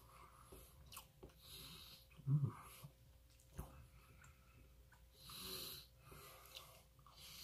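Close-miked breathing through the nose while eating, two soft hissing breaths about two and five seconds in, with a low thump near the middle and a few faint clicks of a metal fork against a plate.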